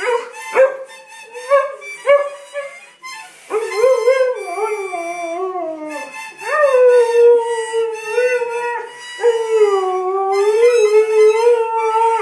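Husky howling ('singing'): a few short rising-and-falling calls, then from about three and a half seconds in, long wavering howls that glide up and down in pitch.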